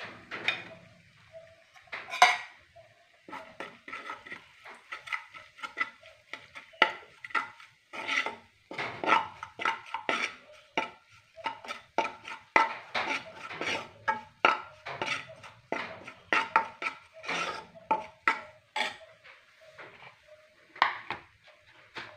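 A metal spoon stirring and scraping in a frying pan, knocking against the pan in quick, irregular clicks, as ground spices are roasted in oil. The loudest knock comes about two seconds in.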